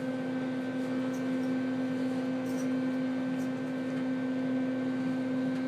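Steady hum inside a moving elevator car, the lift machinery and car fan running as it travels between floors, with a few faint ticks.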